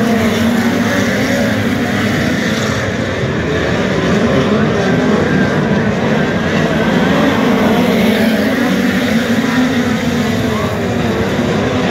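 Several dirt-track race cars lapping a speedway oval at race speed: a continuous loud engine drone whose pitch rises and falls as the cars accelerate, lift and pass.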